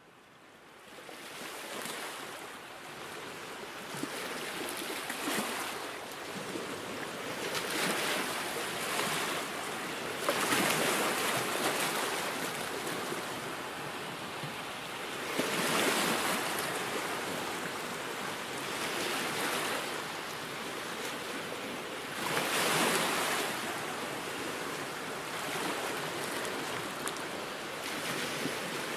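Ocean surf, waves washing in and drawing back in slow swells every few seconds, fading in at the start.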